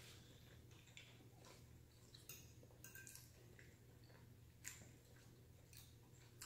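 Faint, scattered clicks and scrapes of a metal fork against a plate, with quiet chewing. The loudest click comes about two-thirds of the way through.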